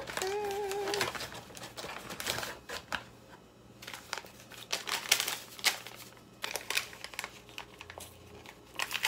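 A paper hot-cocoa packet crinkling and crackling as it is handled and torn open by hand, in a string of irregular crackles.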